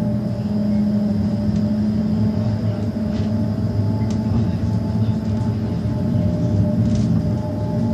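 Tram in motion, heard from inside the passenger car: a steady low running rumble with a constant hum of a few held tones, and a few light clicks.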